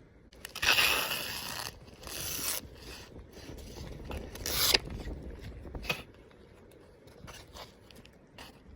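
Winter gear being handled: three loud rasping rips, the first about a second long, then fainter clicks and rustles.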